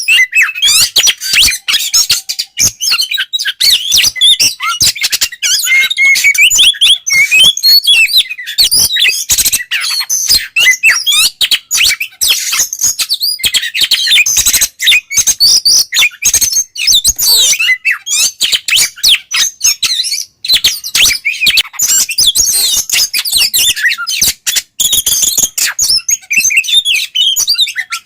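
Oriental magpie-robin singing in full 'ngeplong' style: a loud, unbroken stream of quick, varied whistles and chattering notes.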